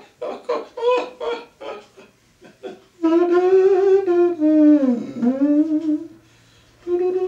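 A man's voice: a run of quick wordless syllables, then a long hummed note that sags down in pitch and back up. It breaks off about six seconds in and starts again near the end.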